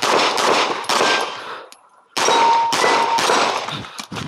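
Rapid string of 9mm pistol shots from a CZ Shadow 2, several a second with echo after each, broken by a short pause about two seconds in.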